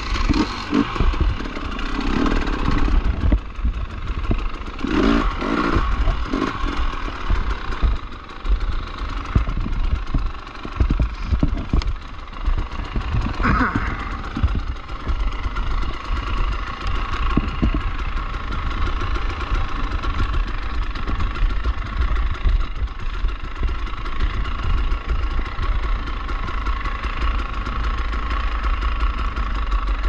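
Dirt bike engine running under changing throttle while riding rough single track, with irregular knocks and rattles from the bike over the terrain.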